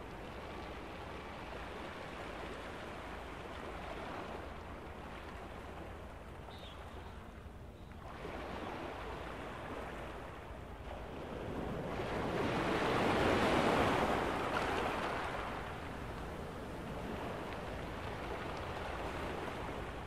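Ocean surf breaking and washing over rocks: a continuous rushing wash that swells to its loudest about twelve to fifteen seconds in, then eases back.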